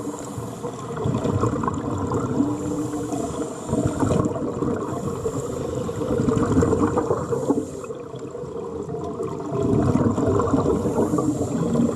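Fish splashing and churning the water at the surface as they feed, a busy gurgling splash that grows louder about ten seconds in, with a steady low hum beneath it.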